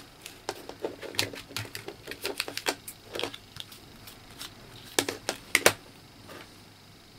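Irregular clicks and taps of a plastic auto-darkening welding filter cartridge being handled, with a few louder knocks a little past halfway as it is set down on a wooden desk.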